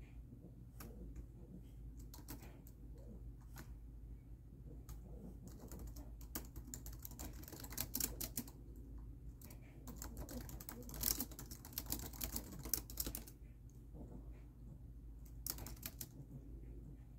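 Fingers typing on a laptop keyboard: irregular key clicks, with denser, faster runs in the middle, over a steady low hum.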